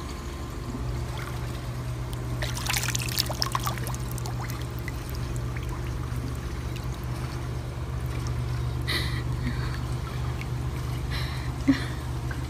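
Swimming-pool water sloshing and trickling around a dog standing upright in the water, with a patch of splashing about three seconds in. A steady low hum runs underneath.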